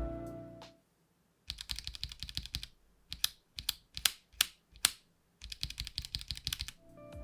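Keystrokes on an Akko 5075B Plus V2 mechanical keyboard: a quick run of typing, then about seven single, spaced key presses, then another quick run. Background music fades out about a second in and returns near the end.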